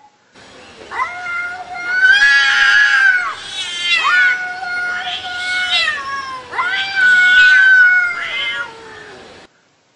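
Cats yowling in a face-off: a run of long, drawn-out, wavering howls, each a second or two long, typical of a territorial standoff between two cats.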